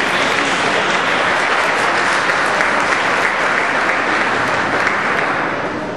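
Spectators applauding: steady, dense clapping in a large hall that thins out near the end.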